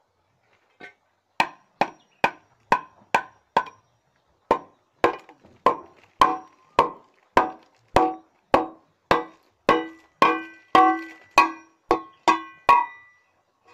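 Large rusty steel pipe being knocked over and over, about two knocks a second. Each knock rings briefly with a metallic tone. The knocking starts a little over a second in and pauses briefly around four seconds in.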